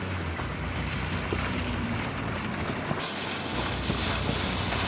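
Wind buffeting the microphone over the rush of water from an inflatable dinghy's hull and wake, with no motor sound from its Torqeedo electric outboard. The water hiss gets brighter about three seconds in.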